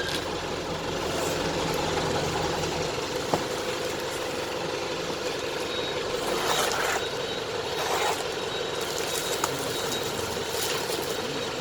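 A vehicle's engine running steadily, with a low hum that drops away about three seconds in.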